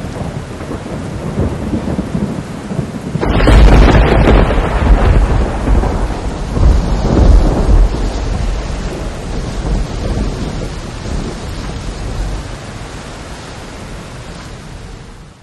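Steady rain, then a loud thunderclap a little over three seconds in that rolls on in long rumbles and slowly dies away.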